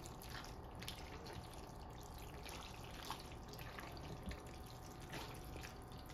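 Faint wet squelches and soft scrapes of a spatula scooping creamy macaroni and cheese out of a stainless-steel pot, with a few small clicks, over a low steady hum.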